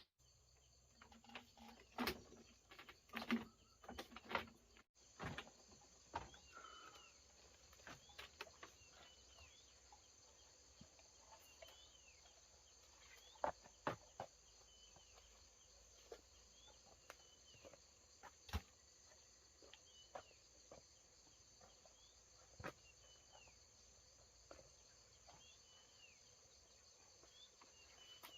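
Faint outdoor ambience: a steady high insect drone, with short bird chirps scattered throughout. Irregular sharp clicks and knocks are loudest in a cluster near the start and a few more around the middle.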